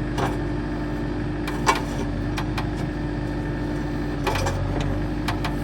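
JCB 1CXT backhoe loader running steadily with a constant hum, with several sharp knocks over it, the loudest just under two seconds in and more near the end.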